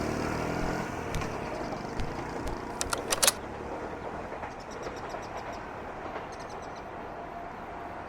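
A vehicle's rumble slowly fading away, with a quick run of sharp clicks about three seconds in, then faint light ticking.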